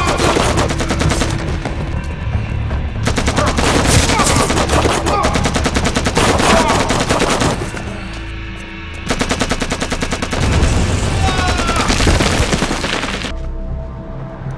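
Rapid automatic gunfire in long, sustained bursts, as in a film shootout, with a short let-up about eight seconds in and the firing stopping about a second before the end.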